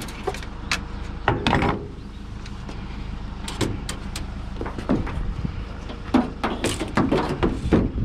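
Short knocks and clatter of gear being handled and set down in and around a pickup truck's metal bed, over a steady low rumble.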